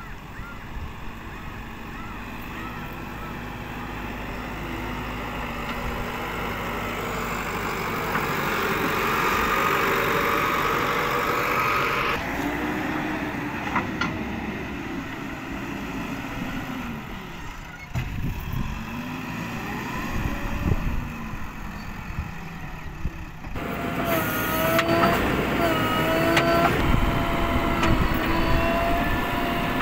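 JCB 3DX backhoe loader's diesel engine running as the machine drives and digs, its sound changing abruptly a few times. A steady whine rides over the engine in the last few seconds while the backhoe bucket digs.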